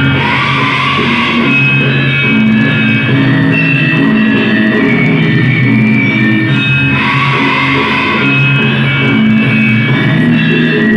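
Loud band music played over a sound system, with guitar and keyboard-like sustained chords; the sound swells noticeably near the start and again about seven seconds in.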